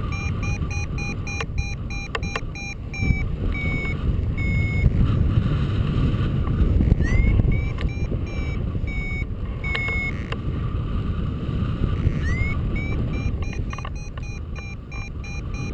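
Paragliding variometer beeping in short repeated tones that shift in pitch, with a quick upward chirp twice, the beeping that signals the glider is climbing. Under it, wind buffets the microphone with a steady rumble.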